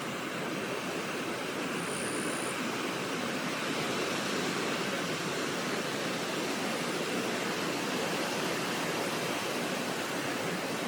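Steady, unbroken rush of flowing river water, with a faint short high note about two seconds in.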